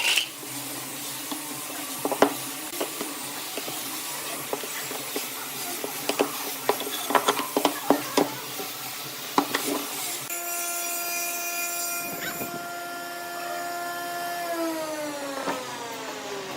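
Wood-lathe turning: a cutting tool scrapes and chatters against spinning wood, with many sharp clicks and scrapes. About ten seconds in, a steady motor whine takes over, and near the end it drops in pitch as the machine slows.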